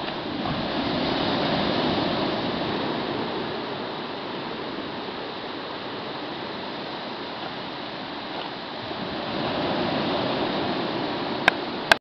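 Sea waves washing onto the shore as a steady rush, swelling as a wave breaks about a second in and again near the end. Two sharp clicks come just before the end.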